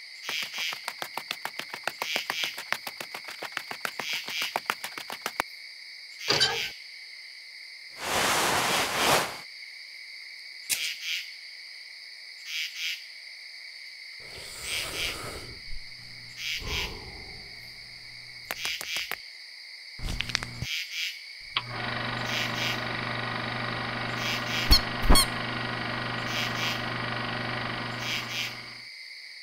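Crickets chirping steadily in a night-woods soundtrack. Over the first five seconds comes a fast run of clicks, and about eight seconds in a short loud burst of noise. From about 21 seconds a steady low buzzing hum, with two sharp clicks in it, runs until near the end.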